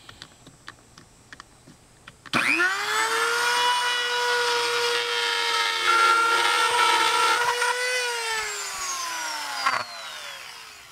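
Handheld rotary tool with a Dremel drywall cutting bit starting up about two seconds in with a sudden high whine that quickly reaches speed, then running steadily while cutting through drywall. Near the end it is switched off and winds down, its pitch falling as it coasts to a stop. A few faint handling clicks come before it starts.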